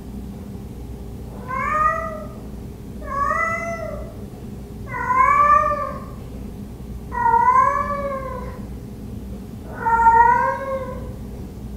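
Black-and-white domestic cat meowing five times, about every two seconds, each call rising then falling in pitch. These are the calls of a cat left alone, crying for its absent owner at the door.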